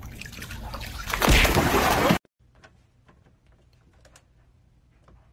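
Swimming-pool water splashing and sloshing as a dog plunges its muzzle in. It grows louder about a second in and cuts off abruptly about two seconds in, leaving only faint scattered ticks.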